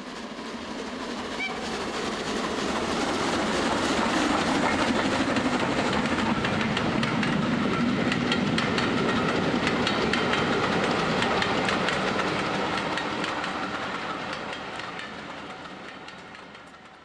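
A train running along the track, its wheels clicking steadily over the rail joints. It grows louder over the first few seconds and fades out near the end.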